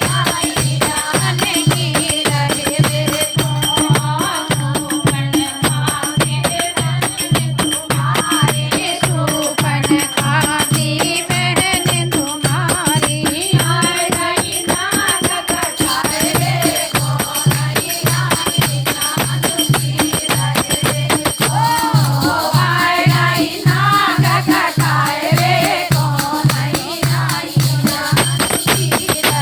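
Hindi folk bhajan: voices singing a melody over a steady drum beat and jingling rattle percussion.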